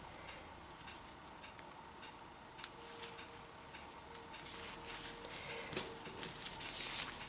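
Thin, lightweight ripstop fabric rustling and crinkling as it is folded and handled. The rustle is faint and grows busier in the second half, with a single sharp click about two and a half seconds in.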